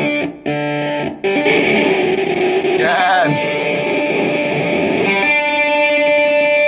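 Electric guitar played through a fuzz effect: short choppy chords that cut off abruptly, then sustained fuzzy notes with a brief pitch-bending squeal about three seconds in. Near the end it settles into a steady held tone, the fuzz's oscillation being shown off.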